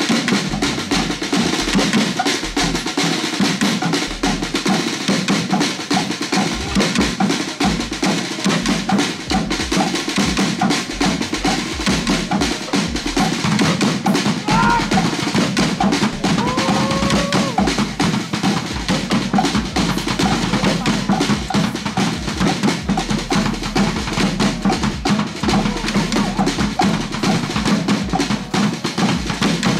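Live Polynesian drum ensemble of wooden drums and a large drum on a stand, playing a fast, unbroken drumming rhythm.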